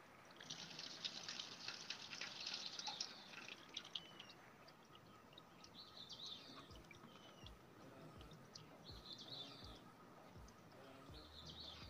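Dry corn husk crinkling and rustling faintly in the hands as it is folded into a petal, loudest in the first three seconds; a few faint high chirps come later.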